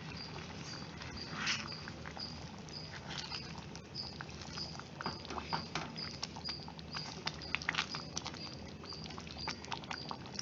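Wooden spatula stirring paneer cubes through thick masala gravy in a clay pot, with irregular clicks and scrapes of wood against the pot's earthenware wall.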